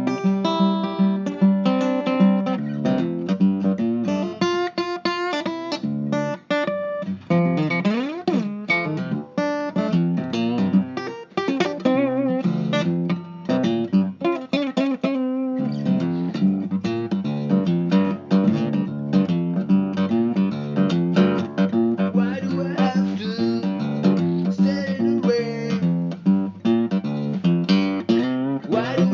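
Guitar music: a continuous run of plucked notes and strums, with a quick sliding pitch sweep about eight seconds in.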